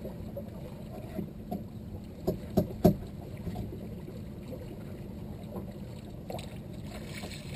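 Steady low wash of water and wind around a small open boat, with three sharp knocks in quick succession a little over two seconds in, the last the loudest.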